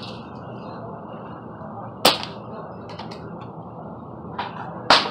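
Two sharp air rifle shots about three seconds apart, the first the louder, over a steady low background noise.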